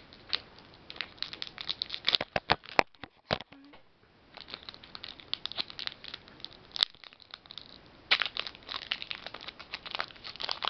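Foil wrapper of a Pokémon Unseen Forces booster pack crinkling and crackling in bursts as fingers pick and pull at its sealed top to tear it open. The pack is tough to get into. There is a short lull near the middle, and the crinkling grows dense and louder near the end.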